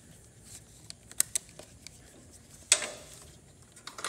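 Scattered light clicks and knocks of hands working against metal parts in a mower's frame, with one louder clack about two and a half seconds in.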